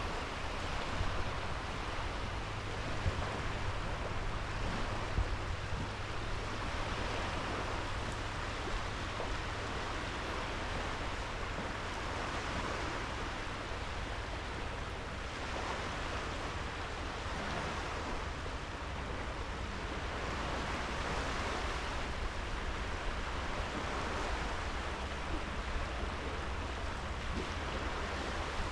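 Sea waves washing onto a sandy beach: a steady wash that swells gently every few seconds, with a low rumble of wind on the microphone underneath.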